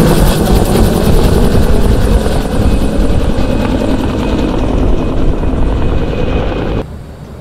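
Helicopter with a two-bladed main rotor (Bell Huey type) passing low overhead. The rotor slap and turbine noise slowly fade as it flies off, then cut off abruptly near the end.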